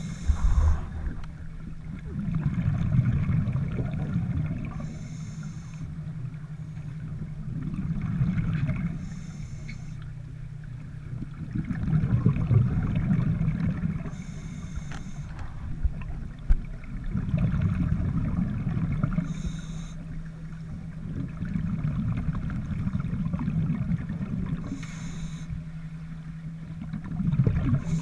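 Scuba breathing heard underwater: a slow cycle of breaths through a regulator with a burst of exhaled bubbles about every five seconds, over a steady low hum.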